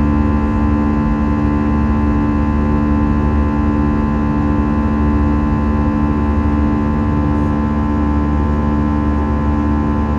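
Airbus A320 cabin noise during the climb: the jet engines running at steady climb power, a deep rumble under several steady humming tones, as heard inside the cabin.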